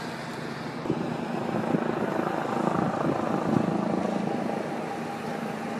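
Helicopter flying overhead: a steady rotor and engine noise.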